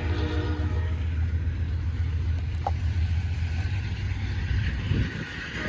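Low, steady vehicle rumble from a passenger train pulling away and cars idling at the crossing, dropping off about five seconds in.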